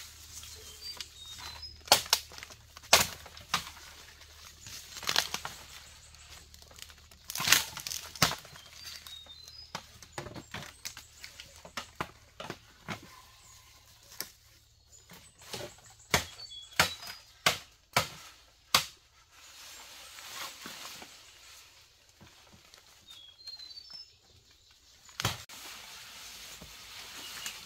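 Dry bamboo-forest litter crunching and snapping underfoot and under hand: irregular sharp cracks of dry twigs and bamboo canes over a rustle of leaves, with a fast run of snaps a little past the middle. A bird chirps faintly a few times.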